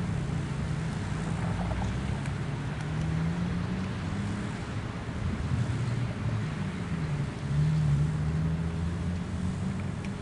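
Background motor-vehicle traffic: an engine running low and wavering in pitch, swelling briefly about seven to eight seconds in, over a rushing outdoor noise.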